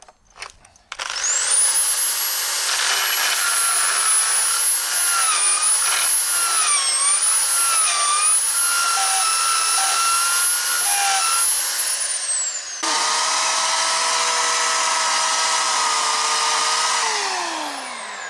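A cordless drill whines as it drives a long screw into a fence board, its pitch dipping a few times under load. It gives way to a small electric chainsaw running steadily for a few seconds, which then winds down as it is released.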